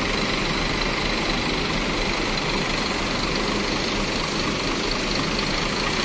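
Scania K410 coach's diesel engine running steadily at low revs as the coach moves slowly across the lot.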